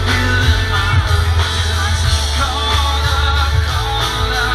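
A live rock band with a singer, amplified through outdoor PA speakers and heard from within the crowd: a heavy steady bass under guitars and a sung melody.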